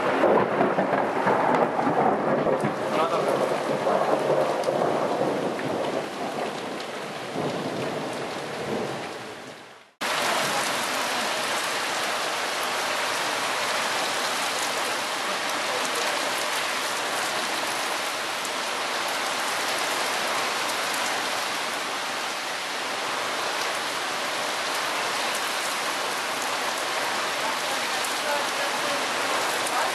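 Loud thunder rumbling over a heavy downpour, dying away over about ten seconds. The sound cuts out abruptly for a moment, then steady heavy rain continues.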